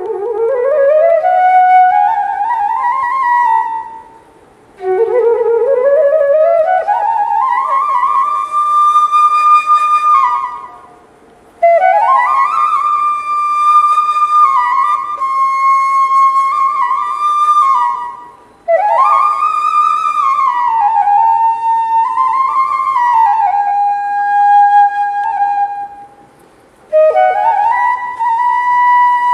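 Solo bamboo flute (bashi) playing a slow, sad melody in long held phrases, each one sliding up into its first note, with brief pauses for breath between phrases.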